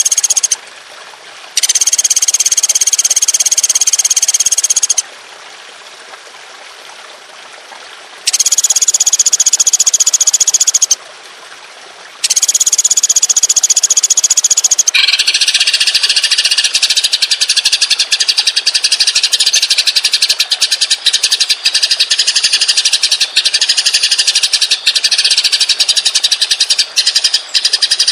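Songbird song: four separate high, buzzy trills of one to three seconds with short pauses between them, then from about halfway a single long, very rapid rolling trill that runs on unbroken.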